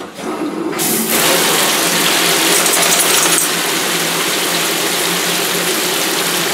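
Handheld shower sprayer switched on under a second in, then spraying water steadily onto a soapy dog and the tub to rinse off the soap.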